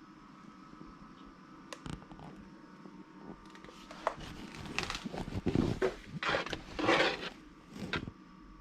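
Handling noise: a couple of light knocks, then from about halfway through a run of scraping and rubbing sounds, loudest toward the end.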